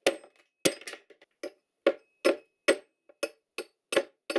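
Reproduction medieval knight's axe striking a steel bar bonded with JB-Weld epoxy to a cast iron block: about ten sharp metallic knocks, two or three a second, some with a brief ring. The blows are trying to break the epoxy bond.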